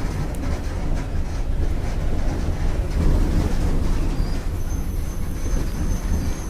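Volkswagen Volksbus 17.230 OD bus running, a steady, loud low rumble of the diesel engine with rattling noise over it. A thin high whine comes in about two-thirds of the way through and holds.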